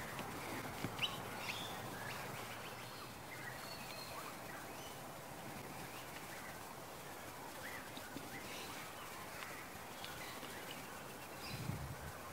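Outdoor lakeside ambience: a steady low hiss with scattered short, faint bird calls and chirps throughout.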